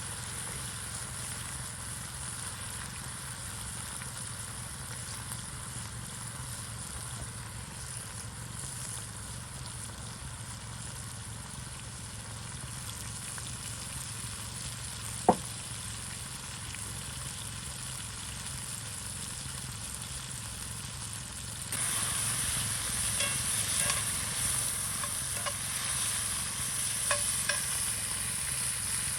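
Marinated fajita meat sizzling as it cooks over a campfire: a steady hiss that gets louder about three quarters of the way through, with crackles and spits. There is one sharp tick around the middle.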